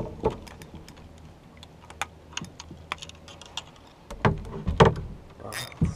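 Fishing rods and a spinning reel being handled in a plastic kayak: irregular light clicks and taps, with a few louder knocks about four to five seconds in and another just before the end.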